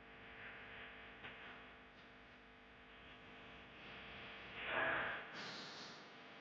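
Faint hiss with a steady electrical hum from an old analogue broadcast recording, and a brief louder rush of noise about five seconds in.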